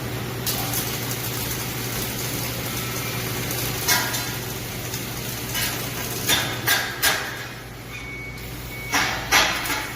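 Steady electrical hum of a robot welding cell with machine noise, broken by sharp knocks: one about 4 seconds in, three in quick succession around 6 to 7 seconds, and a fast run near the end.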